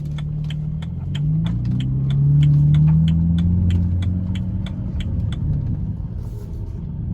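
BMW Z4's engine running, its note rising about a second in and easing off again after about three seconds. A steady ticking, about three a second, runs over it and stops about five seconds in.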